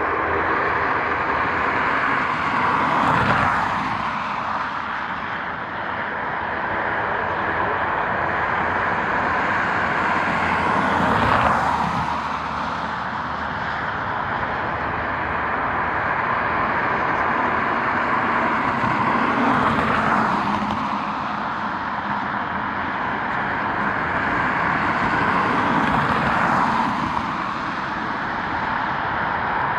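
Outdoor vehicle noise at an airport: a steady engine rush with four vehicles swelling past and fading, about every eight seconds.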